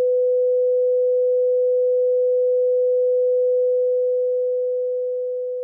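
A single steady, mid-pitched electronic tone, one pure note held level and then slowly fading out from about three and a half seconds in.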